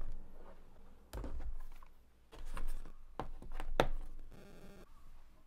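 Charging cables and small gadgets handled on a wooden desk: a USB-C cable unplugged from a laptop, with several sharp clicks and knocks as plugs and cables are picked up and set down. A brief rasping sound comes a little past four seconds in.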